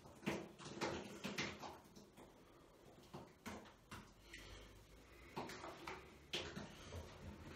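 Faint, irregular wet squelches and soft slaps of thick cake batter and Angel Delight being wiped off the face and squeezed in the hands, with a slight echo of a small tiled bathroom.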